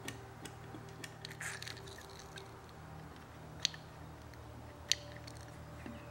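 Sparse light clicks and scratchy scrapes of a small metal pick and a cotton swab cleaning grime out of a brass keyhole escutcheon set in a wooden drawer front. Two sharper ticks stand out, about three and a half and five seconds in, over a faint steady hum.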